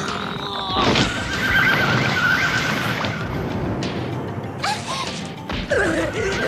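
Shrill, wavering monster cries over dramatic background music, with a heavy hit about a second in.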